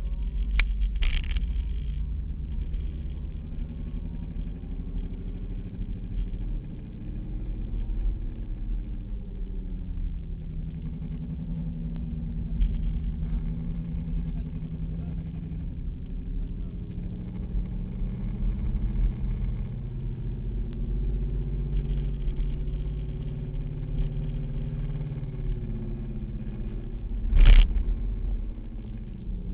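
Opel Corsa's engine heard from inside the cabin, its pitch rising and falling as it accelerates, lifts off and changes gear. A loud thump comes near the end.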